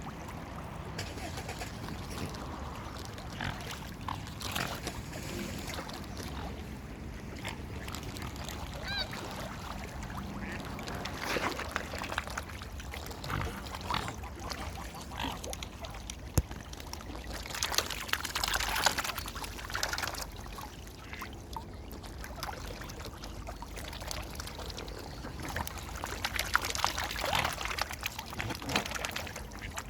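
Mallard ducks quacking and Canada geese calling in a crowd of waterfowl, with bursts of splashing and flapping on the water. One clear, high call stands out about nine seconds in.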